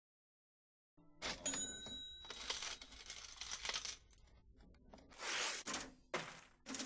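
Coins dropping and clinking together, with ringing metallic tones, in several bursts starting about a second in.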